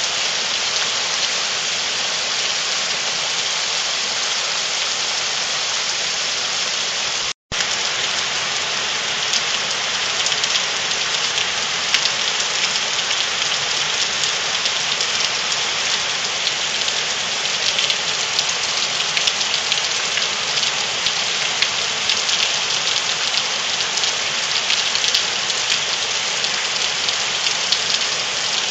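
Heavy rain falling steadily on grass, leaves and soaked ground, a constant hiss with sharper individual drops breaking through after the first third. The sound cuts out completely for a split second about a quarter of the way in.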